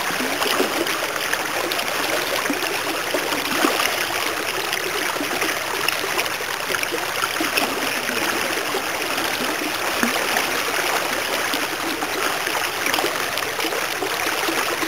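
Steady rush of fast-flowing creek water.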